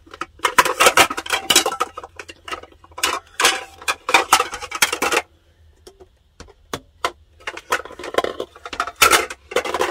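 Nested plastic mixing bowls clattering and knocking against each other as they are pulled apart and handled. There is a short lull with a few single clicks about five seconds in, then more clatter near the end.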